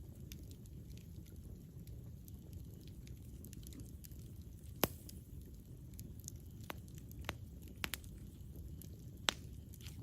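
Campfire burning: a steady low rumble of the flames with scattered sharp crackles and pops of burning wood, the loudest pop about five seconds in and another near the end.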